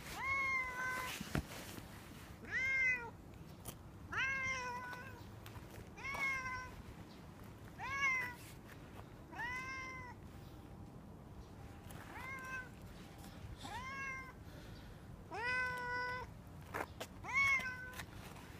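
A mackerel-tabby-and-white cat meowing again and again, about ten short meows spaced a second or two apart, each rising and then falling in pitch.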